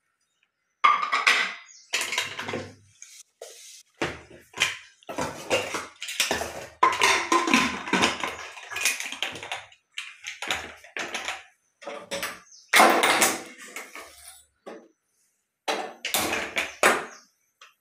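Aluminium pressure cooker and steel pots clanking while being handled: a long run of metal knocks, scrapes and rattles as the cooker's lid is fitted and the cooker is set on the gas stove.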